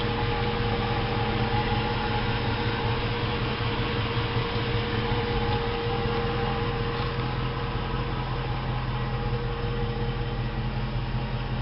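2004 Jeep Grand Cherokee's 4.7-litre V8 idling steadily, with a steady whine running over the engine hum. This is the strange idle noise that the owner thinks may be the fuel pump.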